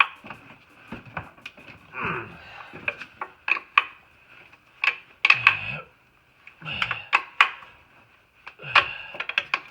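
Irregular metallic clinks and clicks of hand tools: a socket wrench being fitted onto and worked against engine-mount bolts.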